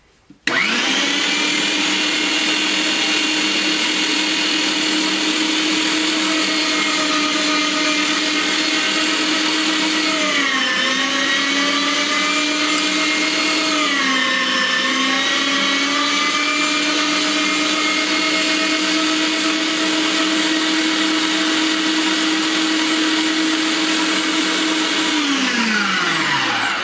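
HOMGEEK electric meat grinder's motor switched on and running with a steady whine while grinding peanuts through its finest plate into nut butter. Its pitch drops about ten seconds in and again about fourteen seconds in as peanuts are fed in and load it, and near the end it is switched off and winds down to a stop.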